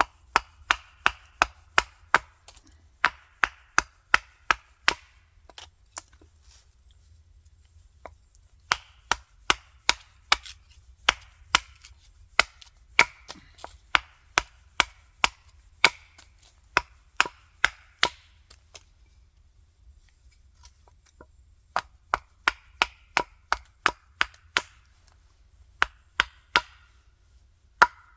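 Axe chopping into a wild cherry billet: quick, sharp strikes, about two to three a second, in runs broken by two short pauses.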